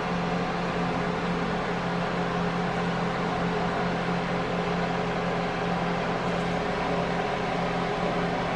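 Chicken drumsticks frying gently in an electric deep fryer's oil, a steady hiss of small bubbles, over a steady low hum.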